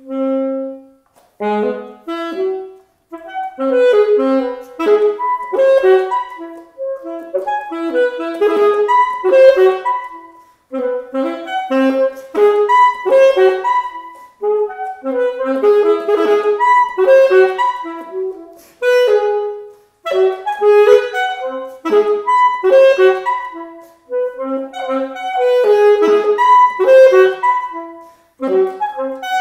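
Solo saxophone playing a microtonal piece built on pentatonic scales: quick runs of short notes in phrases broken by brief pauses, opening on one briefly held note.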